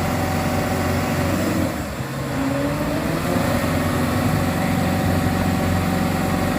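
Diesel truck engine pulling hard up a hill under load. About two seconds in the engine note drops briefly, then rises steadily as the truck pulls on.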